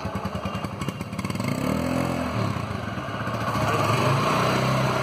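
TVS Apache RTR 160's 160 cc single-cylinder air-cooled four-stroke engine running, heard at the exhaust. It is idling with a fast, even beat, is blipped once about two seconds in, and runs at higher revs again near the end.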